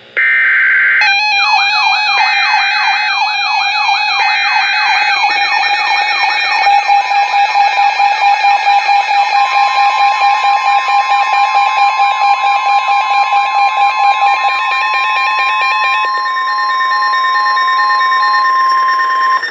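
NOAA Weather Radio warning alert: three short bursts of the SAME digital header, overlaid by a receiver's alarm of quickly repeating falling sweeps, then the steady 1050 Hz warning alert tone for about the last ten seconds.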